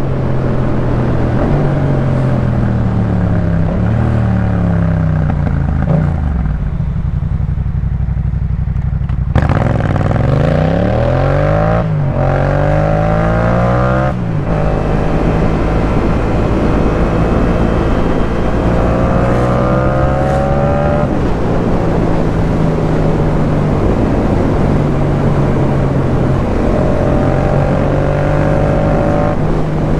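Yamaha MT-07's parallel-twin engine through a Jeskap K4 full exhaust, ridden. The note rises and falls with throttle, eases off for a couple of seconds, then comes back on hard, accelerating through two quick gear changes before settling into a steady cruise.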